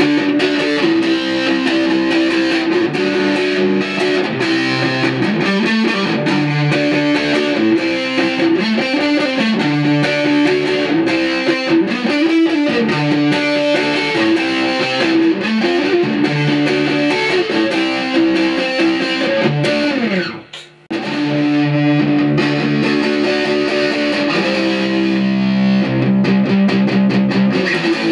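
Electric guitar played through a Marshall Valvestate 8040 combo amp, the formerly dead amp now working again after repair. It plays sustained notes and chords, with a brief pause about twenty seconds in.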